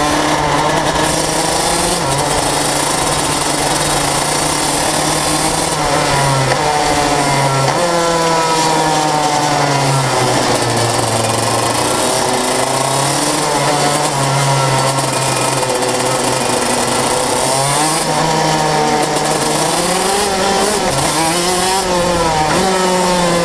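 125cc KZ shifter kart's two-stroke engine at race speed. Its pitch repeatedly climbs and falls as it is worked through the six-speed gearbox into and out of the corners.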